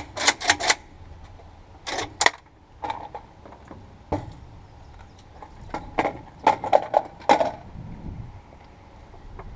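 Irregular sharp clicks and knocks, some in quick runs of three or four, from hard objects being handled.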